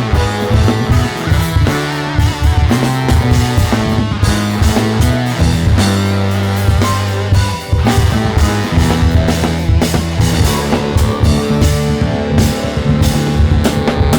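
Rock band playing live without vocals: a drum kit hitting steadily over held bass notes and guitar.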